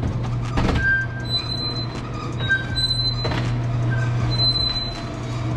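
Sectional overhead garage door rolling up along its tracks: a steady rumbling hum with a couple of knocks and short, high squeaks that come and go.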